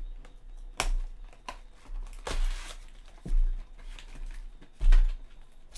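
A cardboard trading-card box being torn open by hand: a sharp snap about a second in, then a short rip around two seconds in, and dull thumps as the box is handled, the loudest near the end.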